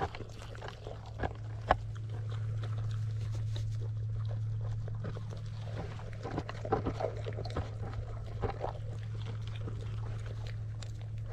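Pet farm animals moving about close by, with scattered clicks and a few short low sounds, over a steady low hum.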